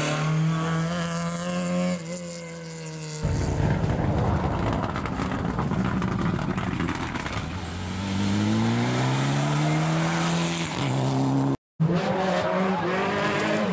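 Rally car engines at speed over a run of edited clips. First a steady high engine note that drops in pitch as the car lifts off. After a cut comes a rougher, noisier stretch, then an engine rising in pitch as a car accelerates. A split-second dropout at the next cut is followed by another car at full throttle.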